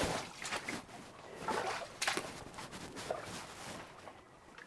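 Footsteps in wellington boots wading through shallow water, a string of irregular splashes and sloshes.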